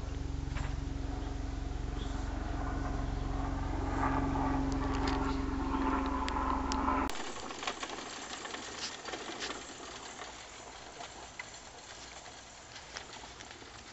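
A steady low hum with a rolling rumble that cuts off abruptly about seven seconds in, followed by quieter rolling noise with light clicks and rattles: a toy wagon carrying a wire cage being pulled over asphalt.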